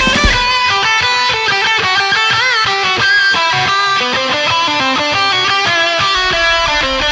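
Guitar-led rock music with fast runs of notes; the drums drop out just after the start and a rapid low pulsing beat comes in near the end.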